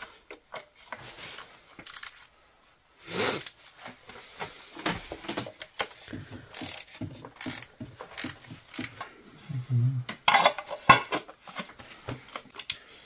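Hand ratchet clicking in short runs, mixed with knocks and clinks of tools and parts, as spark plug and ignition coil fittings are worked on.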